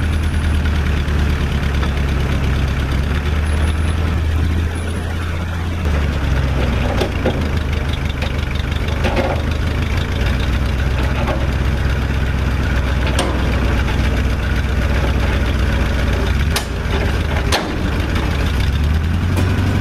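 1959 Chevy Viking tow truck's engine running steadily while the wrecker's winch drags a steel shipping container along the ground; the engine note shifts about six seconds in. A few sharp knocks come in the second half.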